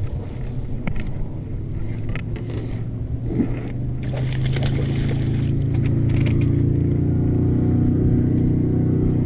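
A boat engine running, its steady hum coming in about four seconds in, building, then holding. Earlier there is rustling from the microphone being handled.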